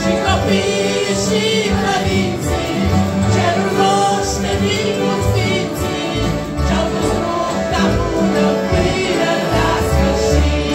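A group of mixed voices singing a Romanian Christian song together, accompanied by two piano accordions and acoustic guitars, with a regular beat in the bass.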